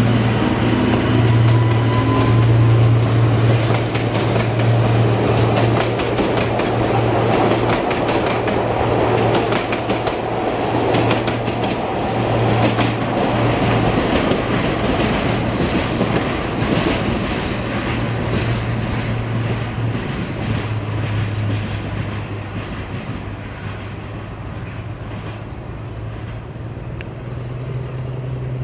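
Narrow-gauge BDŽ Class 75 Henschel diesel locomotive passing with a steady low engine hum, its coaches' wheels clicking over the rail joints as they roll by. The clicking dies away and the sound grows quieter over the last few seconds as the train pulls away.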